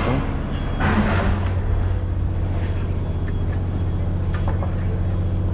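Ferry's diesel engines droning steadily as a deep, even hum through the passenger cabin, with a brief rustle about a second in.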